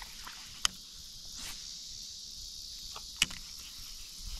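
Steady high-pitched buzz of insects in the marsh, with two sharp clicks, one under a second in and another about three seconds in.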